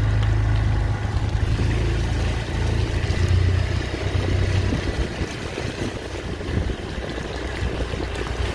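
A vehicle running: a steady low rumble with a noisy hiss above it, easing slightly after the middle.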